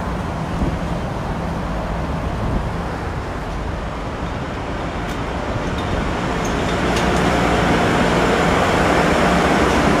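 Steady rushing noise of traffic on wet roads, growing louder about six seconds in.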